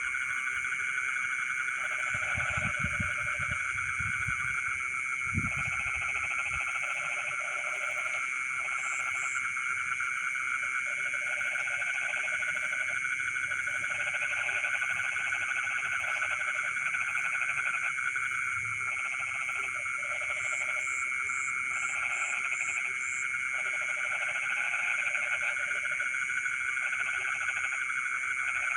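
Night chorus of frogs in a rice field: a dense, steady trilling of many frogs and insects, with a nearer frog croaking in repeated bouts of about a second each. A few low thumps sound a few seconds in.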